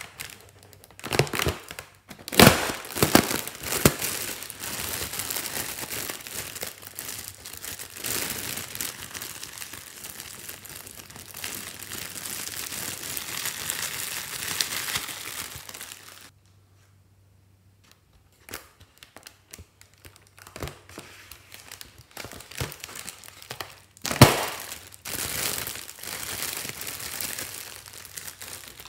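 Thin metallic foil crinkling and crackling as it is handled and crumpled by hand, with a few sharper, louder crackles. It stops for about two seconds just past the middle, then resumes.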